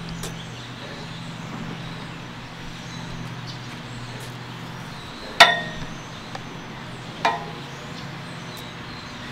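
Steady low hum, broken by two sharp clinks that ring briefly: the louder about five seconds in, a softer one about two seconds later.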